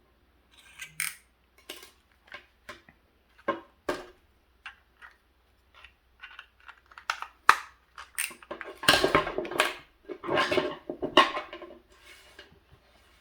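Small clicks, knocks and clatter from handling a power plug and tools while it is tightened and assembled, with a denser stretch of rattling and scraping from about nine to eleven seconds in.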